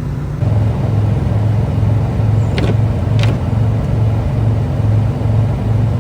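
Semi truck's cab noise while driving: a low engine and road drone pulsing about twice a second, growing louder about half a second in, with two short sharp clicks near the middle.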